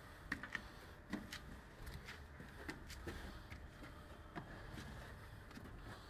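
Faint, irregular clicks and knocks, a few a second, of someone climbing a wooden spiral staircase, over a low rumble.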